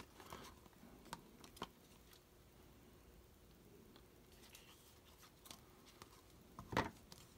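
Faint rustling and light clicks of football trading cards being slid from one hand to the other as a pack is sorted, with a louder click near the end.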